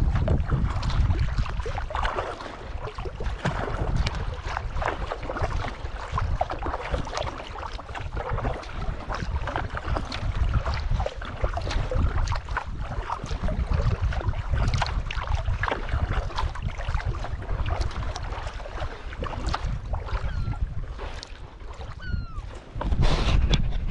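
Water splashing and lapping against a sea kayak's hull as it is paddled across calm sea, with wind buffeting the microphone in a low rumble.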